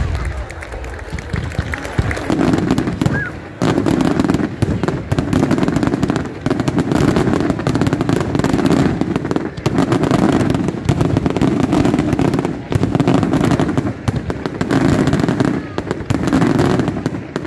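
Bolognese-style ground battery of firecracker salutes going off in a dense, rapid barrage of bangs that surges in waves, with aerial shells bursting overhead.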